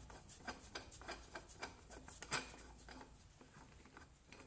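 Faint, irregular light clicks and taps of hand tools and metal parts being handled during work on a quad's rear hub, the sharpest click a little over two seconds in.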